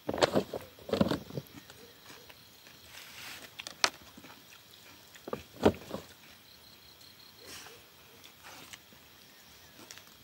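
Scattered light knocks and clinks of steel camp plates, pots and a plastic water jug being handled during a meal, a few sharp ones in the first half, with a faint high pulsing trill a little past the middle.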